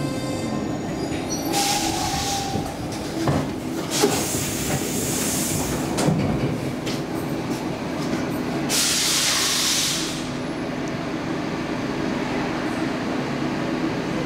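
Stockholm Metro C14 train standing at a station with a steady hum, broken by three short hisses of air and a few sharp clunks.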